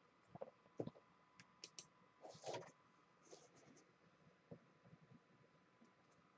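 Near silence with a few faint, scattered clicks from a computer keyboard and mouse, picking a ticker in a chart search box.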